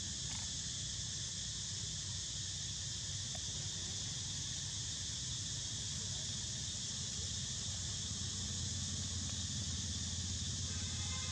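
Steady, high-pitched insect chorus droning without a break, with a low steady rumble underneath.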